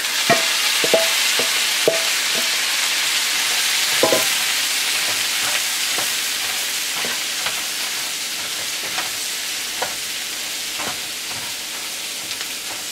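Sliced Brussels sprouts sizzling in hot bacon grease in a frying pan, with light knocks and scrapes as they are stirred with a spatula. The sizzle is loudest at first and slowly dies down.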